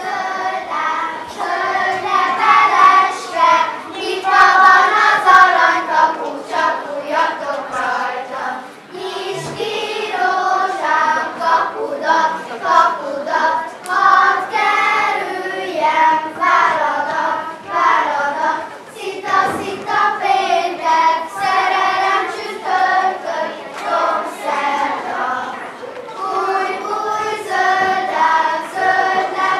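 A children's group singing a folk song together in chorus, with light taps of dancing feet on a wooden stage.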